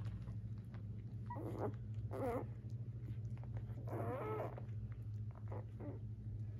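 Newborn Labrador puppies giving several short, high, squeaky whimpers while they nurse, the longest one about four seconds in. A steady low hum runs underneath.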